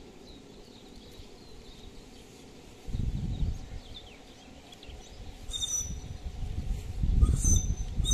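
Outdoor ambience with faint bird chirps, broken by low rumbling bursts about three seconds in and again near the end. Near the end there are a few short, high, whistle-like calls.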